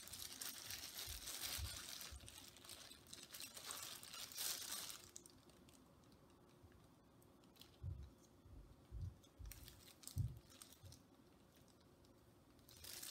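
Clear plastic sheeting and plastic disposable gloves crinkling and rustling as hands handle cloth masks on it, for about the first five seconds. After that it goes quieter, with a few soft low thumps.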